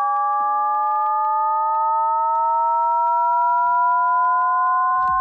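Shepard tone riser synthesized in Serum: several stacked sine tones glide slowly upward together while the top one fades out and lower ones take over, so the pitch seems to rise endlessly.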